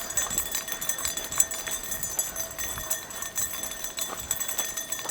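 Footsteps of a person walking along a road, a light irregular patter of steps.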